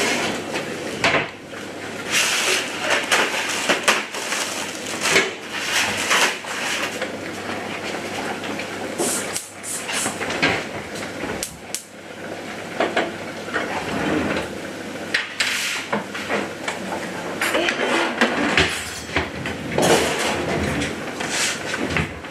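Kitchen clatter of metal baking trays, an oven door and pans being handled: a steady run of irregular knocks, clanks and scrapes.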